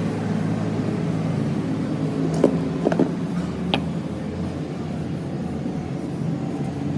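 A steady low machine hum runs throughout. A few short, sharp knocks come through over it: a little past two seconds in, twice around three seconds, and once near four seconds.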